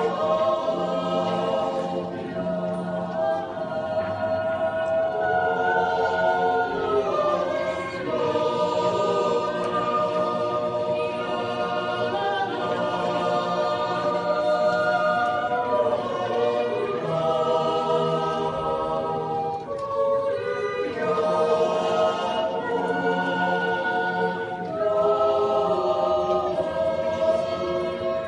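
Swiss yodel club choir of men's and women's voices singing a cappella in close harmony. The chords are held in phrases a few seconds long, with short breaths between them.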